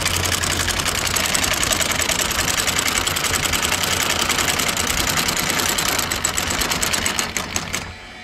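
Maxwell RC10 electric vertical windlass running, hauling anchor chain in over its gypsy with a fast, steady rattle of links over the motor's hum; near the end the rattle grows coarser, then it stops suddenly. The clutch is too loose and needs tightening.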